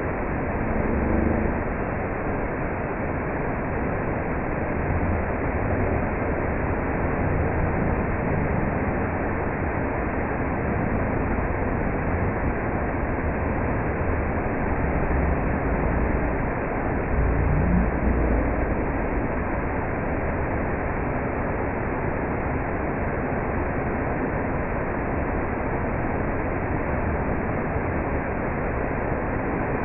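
Waterfall: the steady rushing of falling water, an even noise that does not let up, with a few brief low rumbles, the strongest about 17 seconds in.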